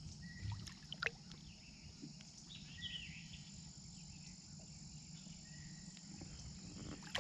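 Outdoor river ambience: a steady high insect drone with a few short bird chirps, and a couple of sharp handling clicks about a second in.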